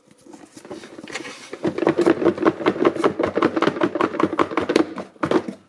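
Cardboard and plastic packaging scraping and crinkling as a USB Wi-Fi adapter is pulled out of its tight-fitting box, with a quick run of small clicks through the middle.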